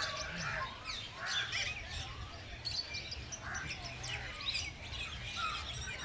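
Many birds chirping and calling at once, a dense chorus of short, high, overlapping chirps with a low rumble underneath.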